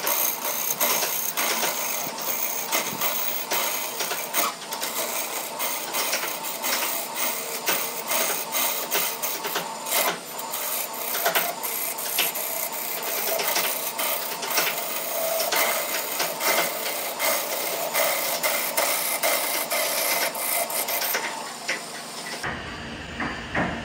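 Turning tool cutting a spinning glued-up segmented wood blank on a lathe: a continuous rasping scrape packed with rapid clicks as chips fly off. Near the end the cutting stops and a lower, duller steady sound is left.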